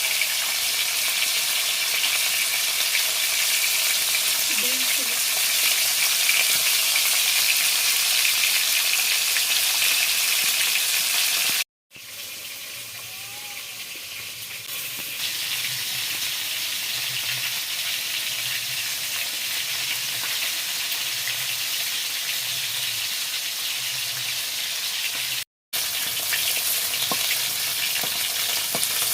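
Pieces of rohu fish sizzling steadily as they fry in hot oil. The sound cuts out twice for a moment, about twelve seconds in and again near the end.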